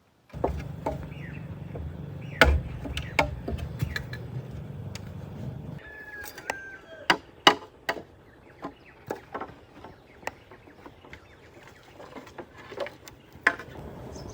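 Irregular sharp knocks of wood being struck with a tool, as in chopping or hammering timber. A low hum runs under the first half and stops about six seconds in, and a short pitched bird call comes around the same point.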